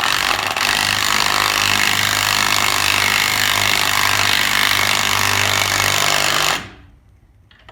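Impact wrench hammering steadily for about six and a half seconds, then stopping suddenly, as it runs a 21 mm nut down onto a leaf spring shackle bolt.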